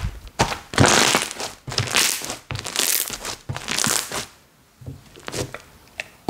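Hands squishing and stretching a long-neglected Cozy Slime slime: crackling, popping clicks in surges about once a second, quieter for the last couple of seconds with only scattered clicks.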